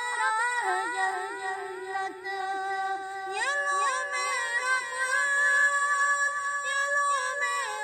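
A boy's high voice singing a naat, drawing out long held notes with ornamental glides between pitches.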